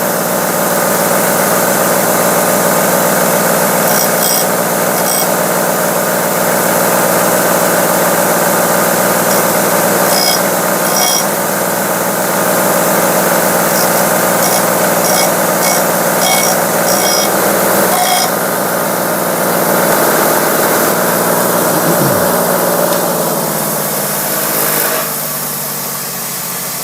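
Electric grinder running steadily while the damaged steel tip of a screwdriver is ground flat, with short high-pitched scraping spots where the metal is pressed against it.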